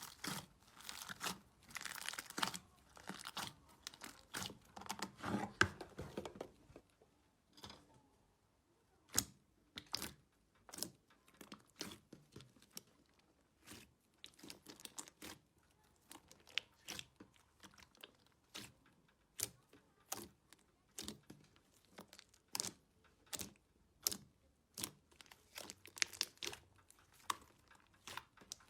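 Slime being squished and pressed by hands: dense crackling and crinkling for the first several seconds, then a sparse series of short sharp pops and clicks, about one or two a second.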